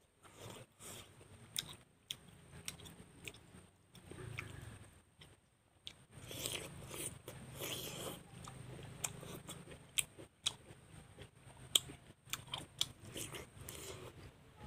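A person eating up close to a clip-on microphone: crisp crunching bites into raw vegetable slices and chewing, with sharp irregular crunches and mouth clicks. The densest crunching comes about six seconds in.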